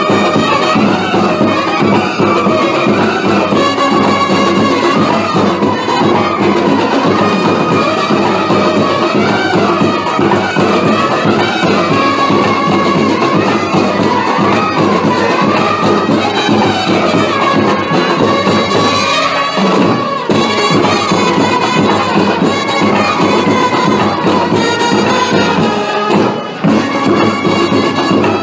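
Background music: a lead melody wavering up and down over dense, steady accompaniment.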